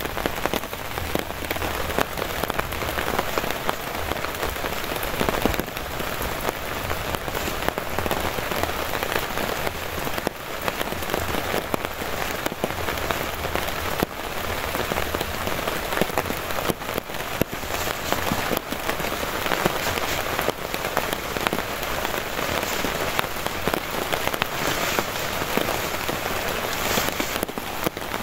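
Heavy rain falling steadily, a dense hiss scattered with the ticks of individual drops striking close by.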